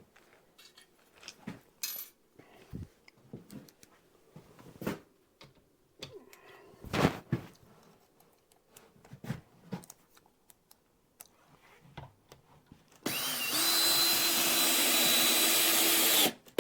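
Scattered knocks and handling clicks, then a power drill driving a screw to fix the shelf, running steadily for about three seconds near the end before stopping.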